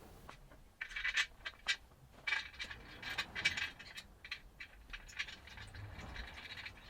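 Hands working on a motorcycle wheel: an irregular run of light clicks, taps and scrapes, beginning about a second in.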